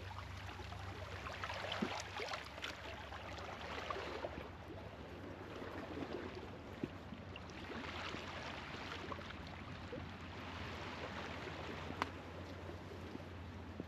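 Small sea waves washing onto the shore, the wash swelling and fading every few seconds, with a few sharp clicks.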